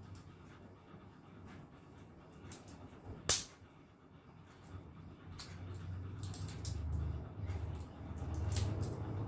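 Close-up eating sounds: chewing and mouth noises, with scattered small clicks and one sharp crack a little over three seconds in.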